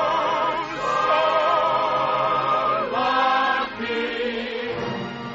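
Singers with orchestra holding long notes of a show tune, the voices with wide vibrato and a choir behind them, moving to a lower note about three and a half seconds in.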